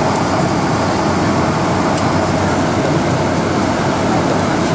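Steady cabin noise inside a Boeing 747 on approach for landing: the jet engines and rushing airflow heard through the fuselage as an even, unbroken drone.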